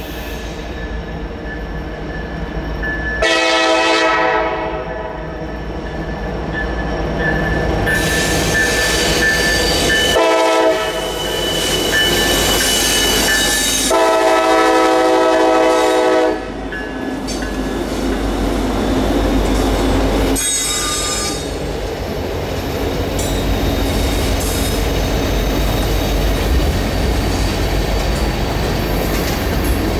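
Freight train locomotive's air horn sounding three blasts: a blast of about a second, a short one, then a long one of about two seconds. Underneath is the steady rumble of the passing train, with a thin wheel squeal.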